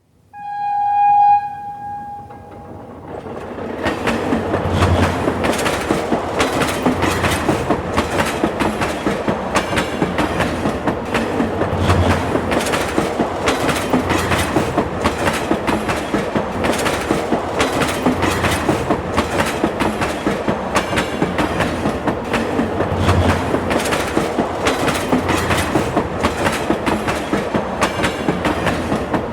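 Subway train sounding one short horn blast, about a second and a half long, then running along the track. The wheels give a steady clickety-clack over the rail joints, with an occasional low thump.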